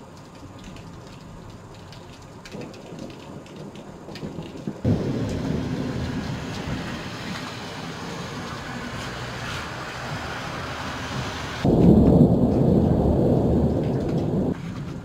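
Heavy rain with rumbling thunder. It steps up suddenly to a loud low rumble about five seconds in, grows louder again near the end, then drops back.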